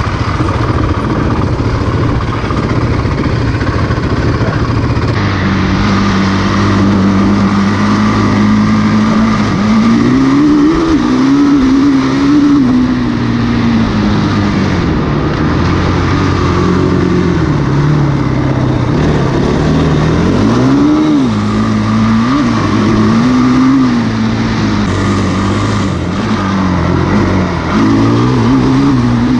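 Honda TRX450ER quad's single-cylinder four-stroke engine running under way, heard from the seat. It holds a steady note for a few seconds, then revs up and drops back again and again as the throttle is worked.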